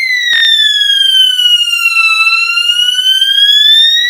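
System Sensor SpectrAlert fire alarm sounding a slow sweeping tone that glides down in pitch and then back up over a few seconds. There is a single sharp click near the start.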